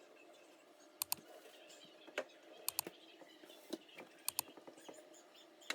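Scattered light clicks and taps from hand cleaning inside a refrigerator's freezer compartment, about nine small knocks spread over several seconds.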